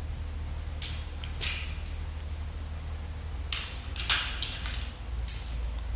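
Fishing rods being handled: a few short scrapes and clicks as rods are shifted and picked up, over a steady low hum.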